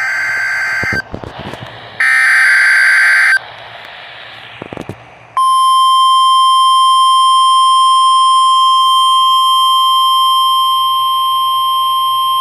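NOAA Weather Radio test heard through a receiver. It opens with two short, harsh digital header bursts about a second each, with static hiss between them. About five seconds in, the National Weather Service's steady 1050 Hz warning alarm tone starts and holds, loud and unbroken.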